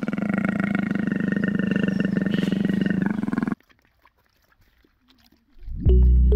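A big cat's low, rumbling growl with a fast pulsing grain, lasting about three and a half seconds and cutting off suddenly. After a short near-silent gap, music with a heavy bass starts near the end.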